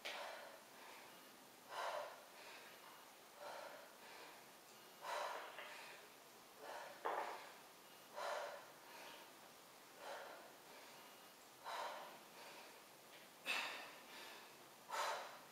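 A person's heavy breathing from exertion: a sharp breath about every one and a half to two seconds, in time with repeated side-plank dumbbell rotations.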